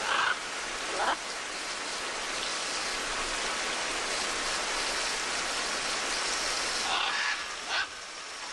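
Steady rain, with a few short harsh macaw squawks, one right at the start and another about a second in. The rain thins near the end.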